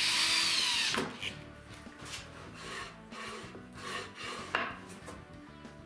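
A cordless drill whines as it drives a screw into oak for about a second. Then the oak fence is slid back and forth along its metal track, giving a series of rubbing, scraping strokes and a sharp click about four and a half seconds in. Light background music plays under it.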